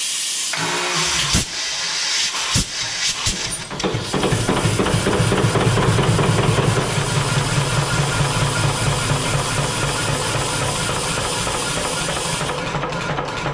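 Old marine engine being started on compressed air: a loud hiss of starting air with a few irregular knocks, then about four seconds in the engine catches and runs with a steady, even beat. The hissing goes on until shortly before the end.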